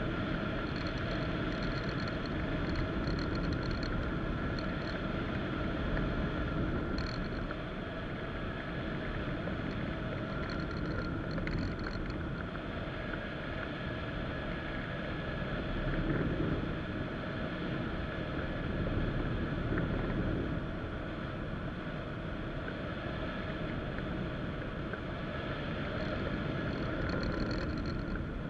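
Steady rush of airflow over the microphone of a camera mounted on a hang glider's wing in soaring flight, a low rumbling wind noise that swells and eases slightly.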